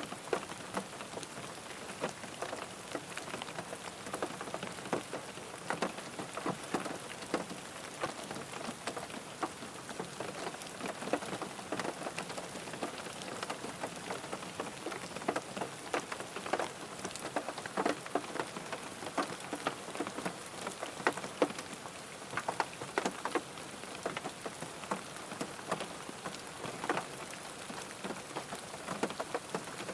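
Steady rain falling on a car, with many separate drops ticking sharply on the body over a constant hiss.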